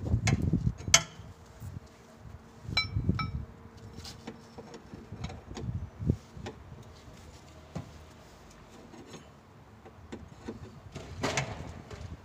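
Irregular metallic clinks and knocks from a car jack and tools being worked under a car, with two short ringing metal pings about three seconds in.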